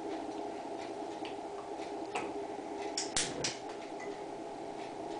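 Hot cooking oil faintly crackling in a frying pan, with a few sharp ticks about three seconds in, over a steady low hum.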